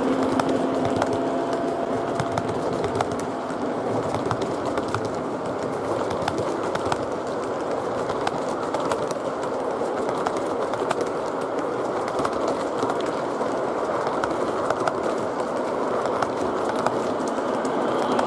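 O gauge three-rail model freight train rolling past, its box cars' metal wheels on the rails making a steady rumble with scattered clicks over the track joints.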